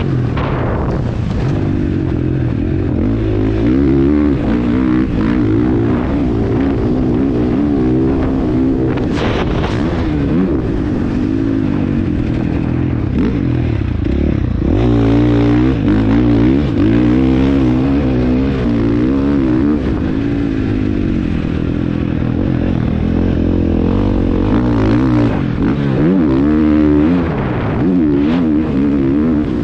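KTM 250 enduro motorcycle engine ridden hard, its pitch rising and falling again and again as the rider revs up, shifts and backs off between corners and jumps.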